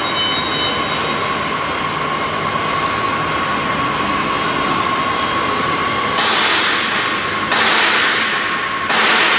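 5-axis CNC router running, its spindle giving a steady high whine over constant machine noise. In the second half three loud rushes of hiss break in, one after another.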